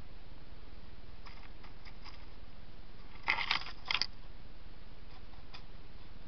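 Steady hiss from a trail camera's microphone, with a few faint clicks, then a louder run of sharp clicks and crackles about three to four seconds in.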